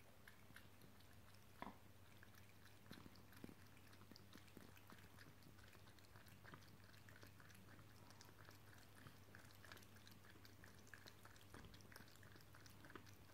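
Faint sound of a tabby cat lapping water from a plastic bowl: a steady run of soft quick clicks, a few a second, over a low steady hum.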